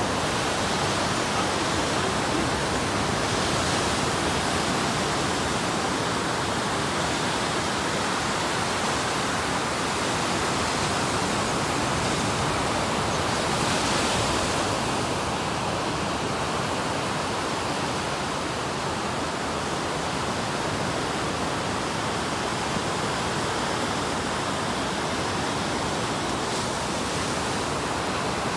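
Steady rushing noise of surf breaking on a sandy beach.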